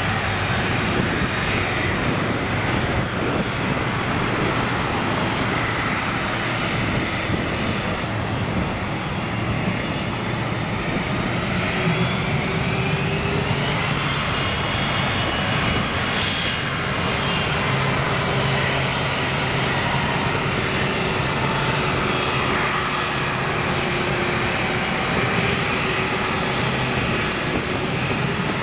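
Boeing 747 freighter's four jet engines running at low thrust as it taxis onto the runway: a steady, loud engine noise with whining tones that slowly shift in pitch.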